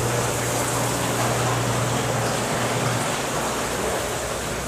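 Steady rushing, water-like noise with a low electric hum from washing machines running in a laundry room; the hum drops away about three seconds in.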